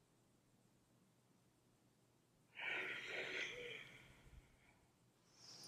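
A woman's audible breath of exertion: a forceful, breathy exhale lasting about a second and a half, starting about two and a half seconds in, then a shorter, higher-pitched breath near the end, as she works through bicycle crunches.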